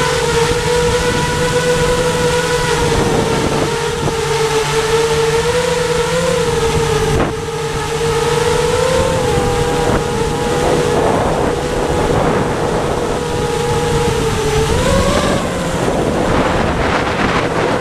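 Electric motor and propeller of an FPV model aircraft whining steadily, heard from the onboard camera, with wind rushing over the microphone. The whine climbs in pitch about fifteen seconds in as the throttle opens up.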